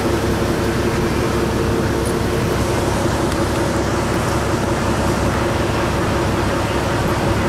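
Ferry's engine running with a steady low rumble and a droning hum that eases off about halfway through.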